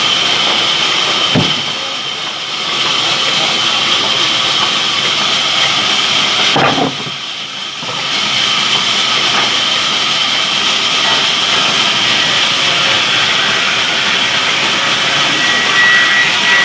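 Sawmill saw machine running, a loud steady noise with a high whine, easing off briefly twice, about two seconds in and again about seven seconds in.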